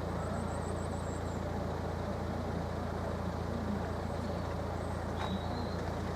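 Steady low hum of an idling vehicle engine, with one faint click about five seconds in.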